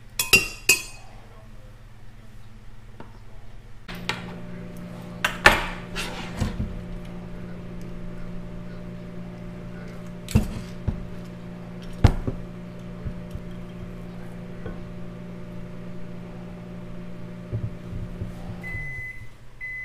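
Microwave oven running with a steady hum as it reheats a cup of plastisol. The hum starts about four seconds in, stops near the end and is followed by beeps. Several sharp metal clanks come from an aluminium injection bait mold being handled and opened on the bench.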